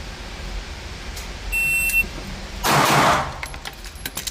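A shot timer's start beep, one high steady tone lasting about half a second, starts about a second and a half in. About a second after it comes a short burst of noise, followed by a run of sharp clicks and pops as an airsoft pistol replica of the S&W 5906 is drawn and fired.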